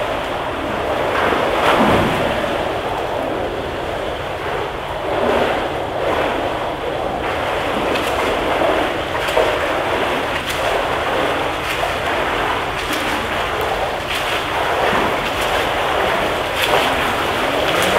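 Continuous splashing and lapping of pool water as swimmers swim in an indoor lane pool, one of them doing backstroke, with the water noise rising and falling.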